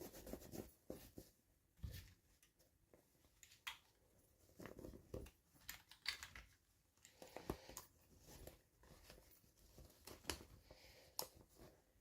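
Faint handling noises: scattered clicks, taps and short rustles of small packaging and toy parts being handled, irregular throughout.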